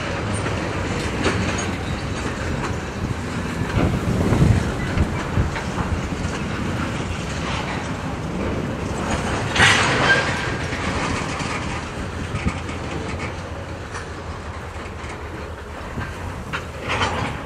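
Freight train of tank cars rolling past: a steady rumble of steel wheels on rail with a few sharp clanks, the loudest about ten seconds in and another near the end.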